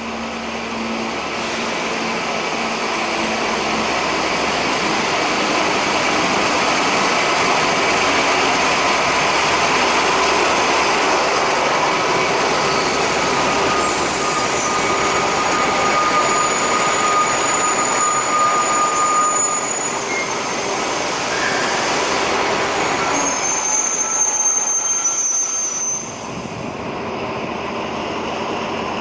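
Night train hauled by BB 67400 diesel locomotives pulling into a station: the engines and the wheels on the rails grow louder over the first seconds, then run steadily. High, thin squeals from the braking wheels come through in the middle and again near the end.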